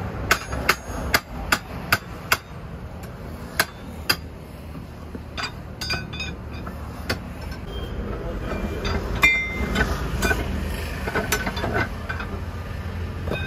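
Hammer blows on metal during truck tyre work: a quick run of sharp, ringing strikes about every half second in the first two and a half seconds, two more a few seconds in, then lighter scattered clinks. A steady low rumble runs underneath.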